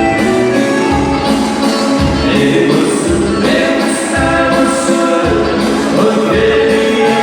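Music with a steady beat of about one low thump a second and held melodic notes, with singing.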